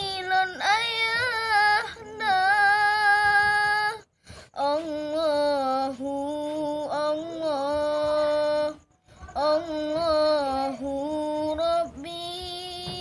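A boy singing solo in long, ornamented, melismatic phrases, with no instruments. He stops briefly for breath about four seconds in and again about nine seconds in.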